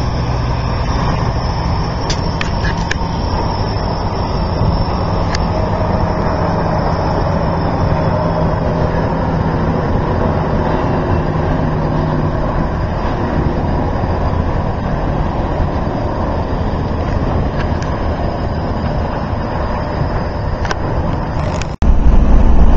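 Steady vehicle rumble with a low engine hum. About a second before the end it cuts suddenly to much louder, deeper road noise from inside a vehicle's cab driving on the highway.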